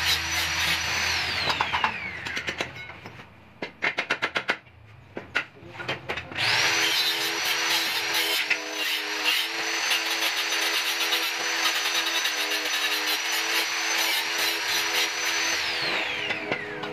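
Handheld electric power tool cutting and notching a metal tube. It is running at full speed, winds down about a second in, a few sharp taps follow, then it spins up again about six and a half seconds in, runs steadily with a high whine, and winds down near the end.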